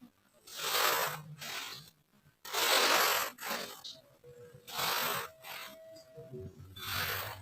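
Kinetic sand being worked, a gritty scraping hiss that comes in four swells about two seconds apart.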